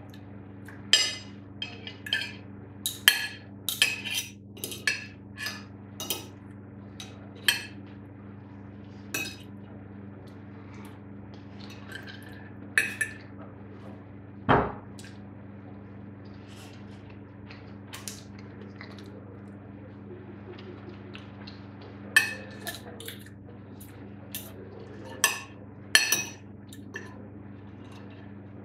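Metal knife and fork clinking and scraping on a ceramic dinner plate while cutting and picking up food, in irregular clusters of sharp clinks with a quieter stretch in the middle. One duller knock about halfway through, over a steady low hum.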